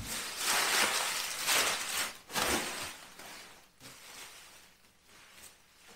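Plastic packing material, bubble wrap and air-pillow film, rustling and crinkling as it is pulled out of a cardboard box. It is loudest for the first couple of seconds, with another short burst a little later, then thins to faint rustles.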